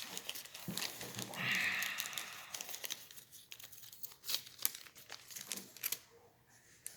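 Crinkling and rustling of a thin material being handled at a workbench, with many scattered small clicks and a brief louder rustle about a second and a half in.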